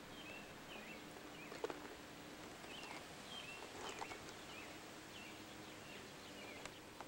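Faint birdsong: short chirping notes that glide up and down, several every second, over a steady low hum. A couple of soft crunches, about one and a half and four seconds in, are footsteps on the track's gravel ballast.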